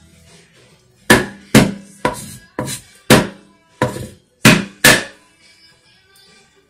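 Plastic grater knocking against a wooden cutting board, about nine sharp, loud knocks over some four seconds, roughly two a second, as zucchini is grated.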